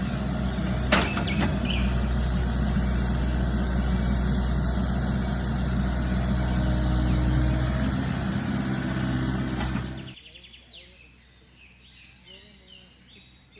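A motor vehicle's engine running steadily with a low, even hum and one sharp click about a second in. About ten seconds in it cuts off abruptly, leaving a much quieter background with birds chirping.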